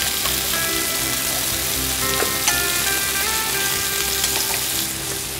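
Chicken breasts and cherry tomatoes sizzling steadily on a hot round griddle plate, with a few light clicks of metal tongs against the plate about two seconds in.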